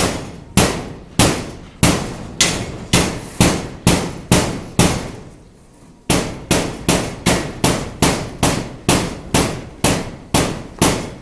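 Hammer blows struck one after another at about two a second, each a sharp crack with a short ring. They come in two runs, with a break of about a second near the middle; the second run is slightly faster.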